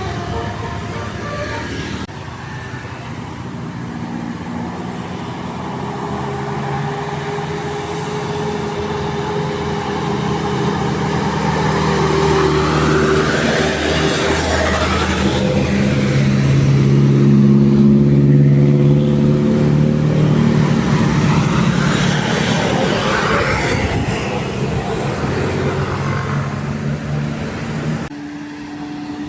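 Bus engine running as the bus passes close by on the road, building to its loudest about two-thirds of the way through and then fading.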